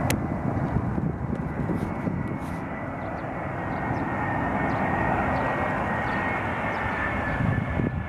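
Airbus A320-214's CFM56 turbofan engines on final approach: a steady jet rumble with a thin high fan whine that drifts slightly lower in pitch as the airliner comes closer.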